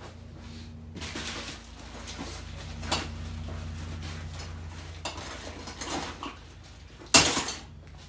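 Hoses and metal intake pipes being rummaged through and knocked together: several scattered clanks and rattles, the loudest one near the end, over a steady low hum.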